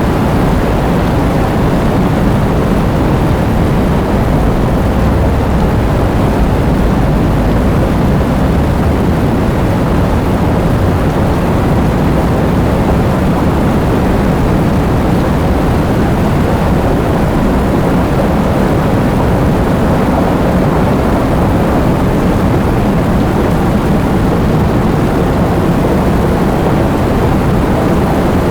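Steady heavy rain: an even, unbroken wash of noise with a strong low rumble beneath it.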